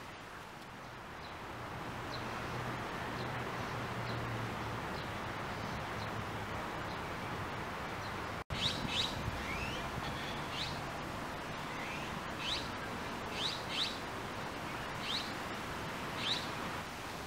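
Small birds chirping over a steady outdoor hiss. From about halfway through, short high chirps come every second or so, some of them sliding down in pitch.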